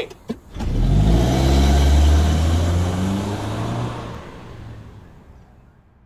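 Car engine revving as the car accelerates hard away, its pitch rising, then fading out as it drives off into the distance.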